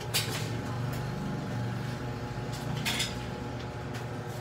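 A steady low hum, with a sharp click just after the start and a couple more clicks and knocks around three seconds in.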